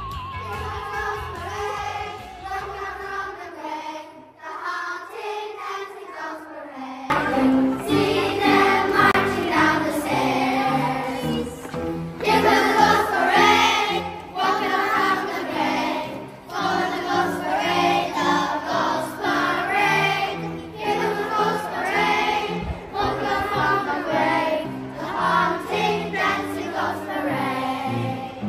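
Instrumental music with a wavering lead line, then from about seven seconds in a group of children singing together over a backing track with a steady beat.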